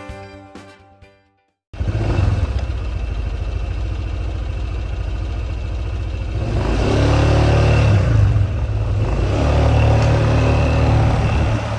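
Honda PCX150 scooter's single-cylinder engine, fitted with a lightened flywheel, comes in suddenly about two seconds in and runs steadily, then revs up as the scooter pulls away about six and a half seconds in, easing off briefly before pulling again.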